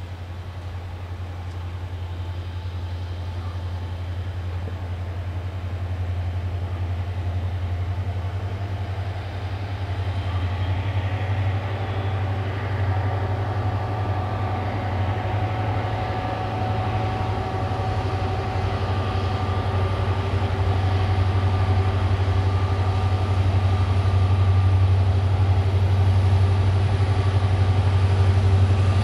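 An HŽ 2063-series diesel locomotive's engine working hard as it accelerates a loaded freight train. There is a strong, steady low hum that grows louder as the train approaches, and higher steady tones join about a third of the way in.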